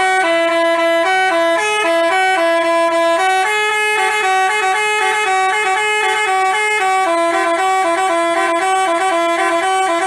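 Telolet basuri bus horn playing a melody: several horn tones sound together and switch quickly from note to note in a tune, loud and unbroken.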